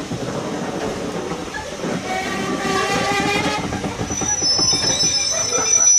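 Railway passenger coaches rolling slowly past at close range as the train comes in to stop, wheels rumbling and clicking over the rail. A pitched squeal swells in the middle, and from about four seconds in a high, steady squeal sets in as the brakes are applied.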